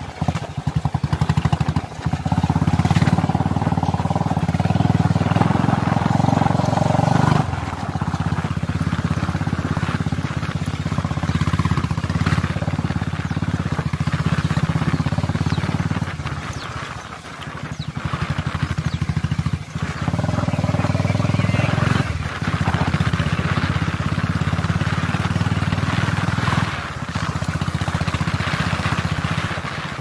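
Motorcycle engine running steadily under way, heard from the rider's own bike, with the engine note easing off briefly about halfway through.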